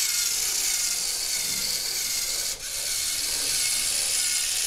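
A Lego NXT servo motor runs through its plastic gears, whirring steadily as the robot drives forward. It stops briefly about two and a half seconds in, then whirs again as the robot drives in reverse.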